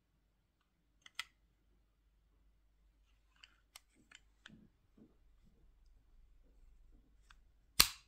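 Faint clicks and scrapes as the metal emergency key blade slides into a Ford keyless remote fob, then one sharp, loud click near the end as the blade latches in place.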